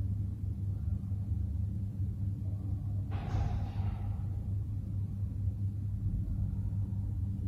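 Steady low hum with a brief whooshing swell about three seconds in that fades within a second.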